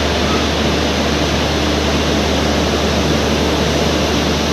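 Steady, loud rushing noise with a low hum from an Indian Railways express train slowly pulling out of the station.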